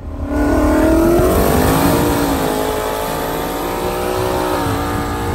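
A car engine under acceleration, its pitch climbing over about the first second, then holding fairly steady.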